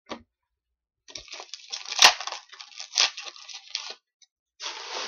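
Foil trading-card pack wrapper being torn open and crinkled by hand, a dense crackling rustle with two sharp loud cracks about two and three seconds in, then more crinkling near the end.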